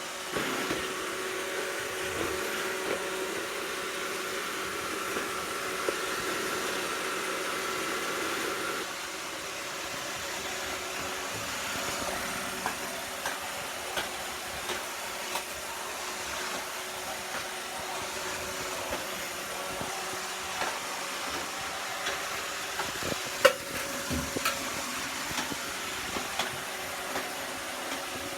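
iRobot Roomba 690 robot vacuum running: a steady whir of motor and brushes with a few held tones, the highest of which stops about nine seconds in. Scattered light knocks sound through it, the sharpest about two-thirds of the way through.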